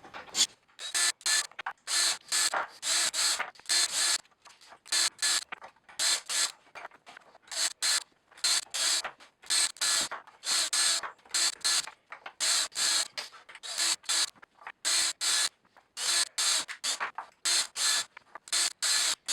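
A small power tool whirring in rapid, irregular stop-start bursts, each burst carrying the same steady motor hum.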